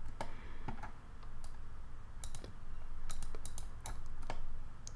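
Irregular, sharp clicks from a computer mouse and keyboard in use, a dozen or so scattered taps.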